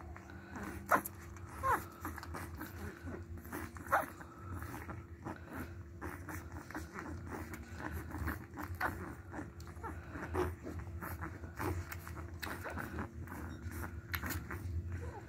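Nursing puppies giving short, high squeaks and whimpers now and then, the loudest about one and four seconds in, over a steady low hum.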